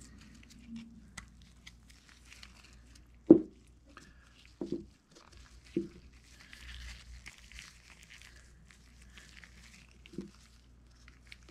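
Nitrile-gloved hands handling greasy pump valve parts and an O-ring, with a faint crinkling and rustling of the gloves. A few dull knocks sound on the workbench, the loudest about three seconds in and the last near the end.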